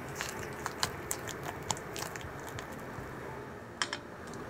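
A spatula scraping and tapping against a glass mixing bowl while scooping whipped strawberry cream: a run of small irregular clicks, then a sharper double click near the end.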